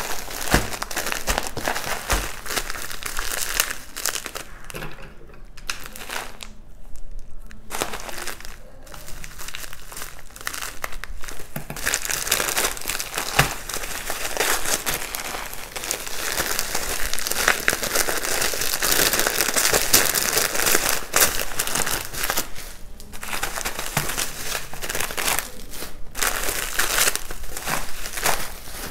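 Packaging crinkling and rustling as a delivery of nail supplies is unpacked by hand, in a long run of handling broken by a few short pauses.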